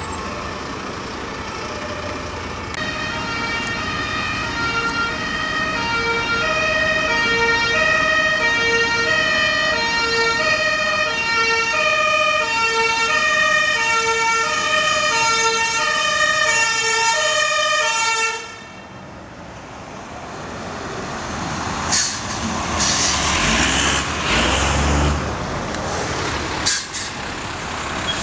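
Fire engine's two-tone siren alternating steadily between a high and a low pitch, cutting off suddenly past the middle. Heavy truck engines then rumble, with a few short hisses and knocks.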